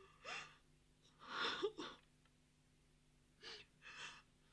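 A woman sobbing: four gasping, whimpering sobs, the longest and loudest about a second and a half in.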